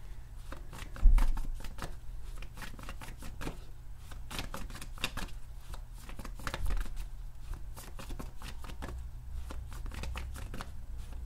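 Tarot deck being shuffled by hand: a continuous run of quick card flicks and riffles, with a loud low thump about a second in and a smaller one past the middle, over a steady low hum.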